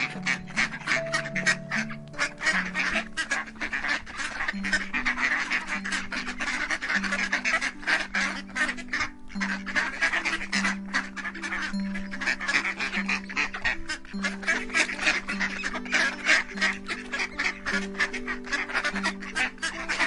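A flock of ducks quacking nonstop, the quacks overlapping densely, over background music of slow, sustained low notes.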